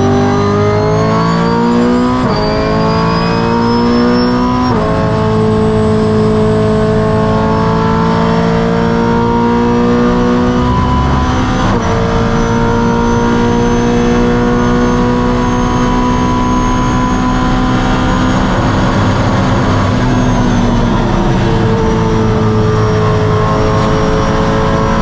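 Brabham BT62's naturally aspirated V8 racing engine at full throttle, heard onboard: the pitch climbs under acceleration and drops sharply at quick upshifts about 2, 5 and 12 seconds in. It then holds at high revs with little change, and shifts again a few seconds before the end.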